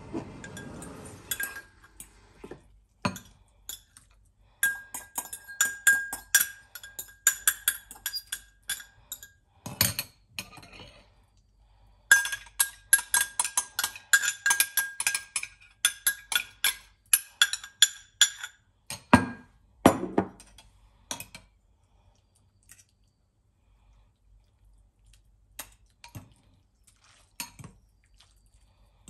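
A metal fork clinking rapidly against a glass cup in two long runs, the glass ringing with each strike. About two-thirds of the way through come two duller knocks, then a few light clinks of cutlery in a ceramic bowl near the end.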